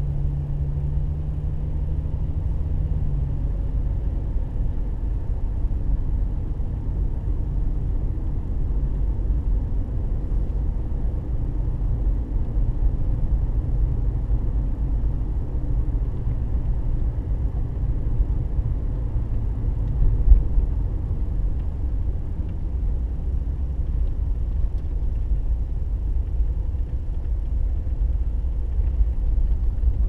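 Car driving on a paved road, heard from inside the cabin: a steady low rumble of engine and tyres, with one brief louder bump about two-thirds of the way through.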